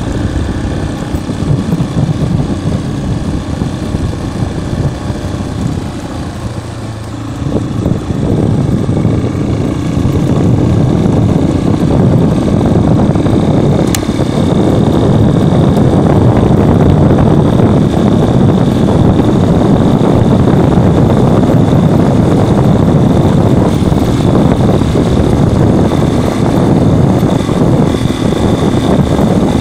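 Yamaha XTZ 250 Lander's single-cylinder four-stroke engine running as the motorcycle is ridden along. It eases off about six seconds in, then picks up and runs louder and steady, with a single sharp click about halfway through.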